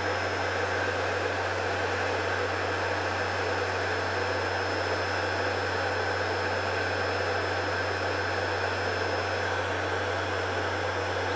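Electric oil centrifuge running steadily at speed while spinning crude sunflower oil clean, a low hum under an even whirring noise, with a faint high tone that fades out near the end.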